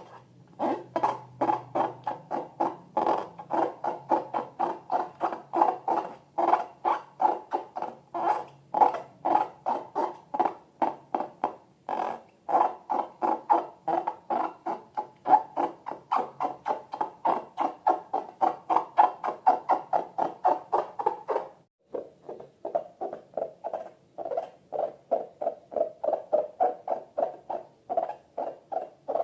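Rubber balloons squeaking as they are squeezed and rubbed by hand: a quick, even run of short squeaks, about two to three a second. After a brief pause about three-quarters of the way through, the squeaks go on a little lower in pitch.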